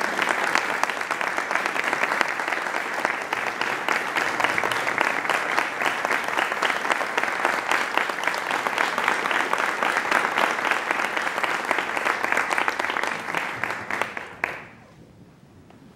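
Audience applauding steadily, then stopping fairly abruptly near the end.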